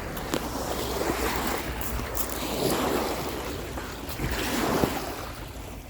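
Lake Erie waves washing against the shore in repeated swells, with wind buffeting the microphone.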